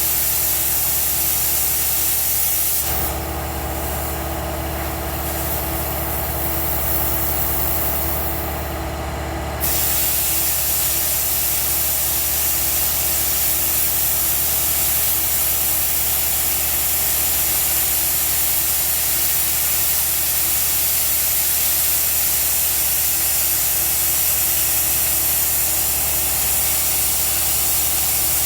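A cutting torch hisses steadily as it cuts through steel truck frame rail, over a steady electrical hum. The high hiss thins out from about 3 seconds in and comes back strongly about 10 seconds in.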